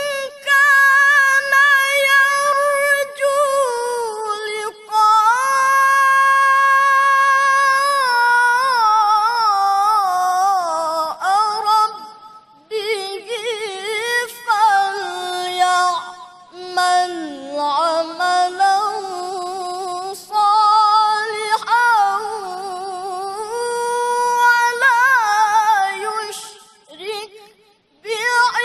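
A male qari chanting the Quran in melodic mujawwad style: long held notes with vibrato and winding ornaments in a high register, dipping lower around the middle. A few short pauses for breath break it up.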